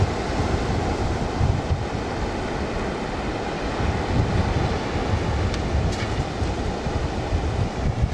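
Sea wind buffeting the microphone in low, gusty rumbles over the steady wash of small waves breaking on the shore.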